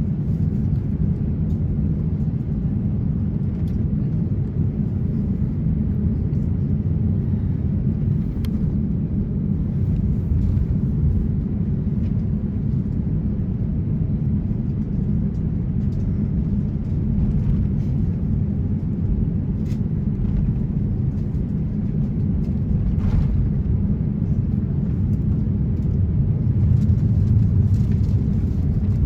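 Cabin noise inside an Airbus A350-900 taxiing: a steady low rumble from its Trent XWB engines and rolling gear, with a few faint ticks, swelling slightly near the end.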